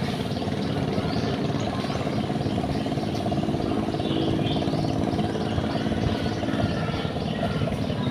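A steady engine hum runs throughout, with birds chirping over it a few times.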